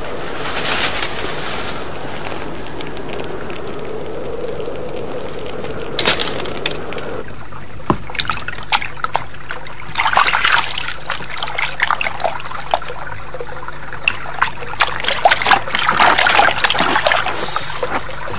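Hands washing something in a shallow stream of running water: irregular splashes over a steady trickle. Before it comes a steady hiss for several seconds, cut off about seven seconds in.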